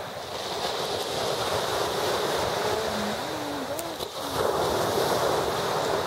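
Sea surf washing up onto a pebble beach, a wave surging in louder about four and a half seconds in.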